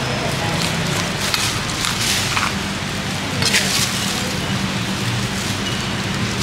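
A large cleaver chopping through roast duck on a cutting board: a few short, sharp chops within the first four seconds or so, over a steady low background hum.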